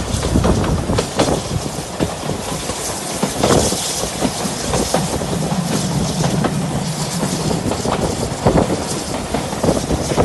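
Railway carriage wheels rolling over the rail joints, a clickety-clack of irregular clicks over a steady rumble and hiss, heard from aboard the moving train.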